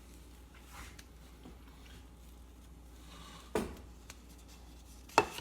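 Paint spatula spreading icing on a cake: faint scraping, with two sharp knocks, one about three and a half seconds in and a louder one near the end.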